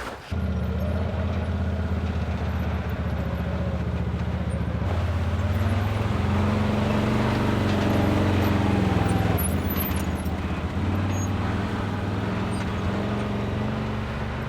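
Off-road vehicle engine running under way on a rough trail, starting abruptly. The engine note climbs gently for a few seconds, drops back, and then holds steady.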